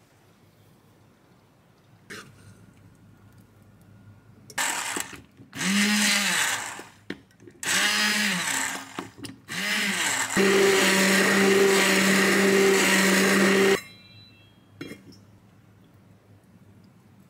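Immersion blender puréeing lentil soup in a steel pot. It runs in a few short bursts, each revving up and dying away, then runs steadily for about three seconds and cuts off suddenly.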